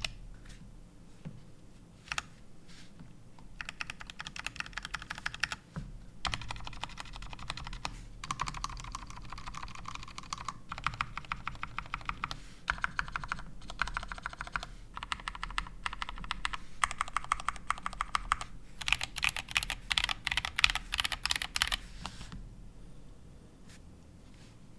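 Typing on a GMMK Compact mechanical keyboard with Gateron Brown tactile switches. Runs of rapid keystrokes come in bursts of a second or two with short pauses between them. There are only a few scattered key presses in the first few seconds, and the typing stops near the end.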